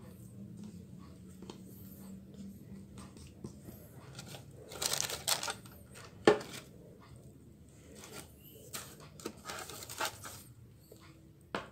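Baking paper lining a metal baking tin crinkling and rustling as it is handled, with a sharp knock a little past halfway through.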